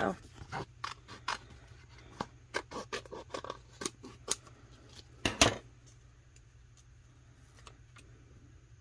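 Scissors snipping a sheet of vinyl decals: a run of short, sharp snips and clicks, the loudest two just after five seconds in, after which the snipping stops.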